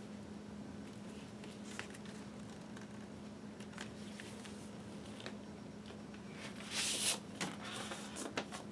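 Cardboard LP jacket and paper inner sleeve being handled, soft rustles and clicks with a louder sliding swish about seven seconds in as the sleeve is drawn out. A low steady hum runs underneath.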